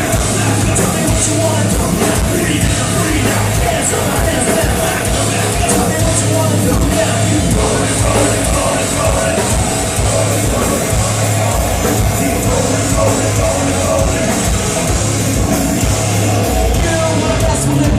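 Live rap-metal band playing loud, with distorted guitars, heavy bass and drums in a dense, steady wall of sound and a pulsing low end.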